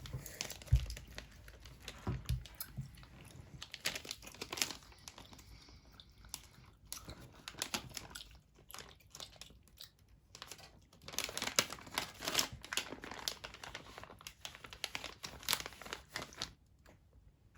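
Plastic snack packaging crinkling and crackling in irregular spells of sharp little clicks as it is handled, the busiest spell about two-thirds through.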